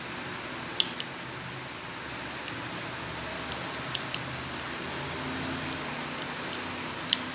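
A few sharp, short clicks of small metal lock parts being handled and fitted into a car's steering lock cylinder, one about a second in, two close together around the middle and one near the end, over a steady hiss.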